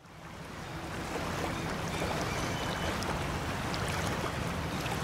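Soft ambient background music fading in over the first second: a low sustained drone under a washing, surf-like texture.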